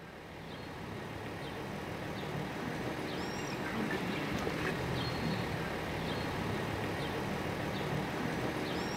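Outdoor city street ambience: a steady wash of traffic noise with a few short bird chirps, growing slightly louder over the first couple of seconds.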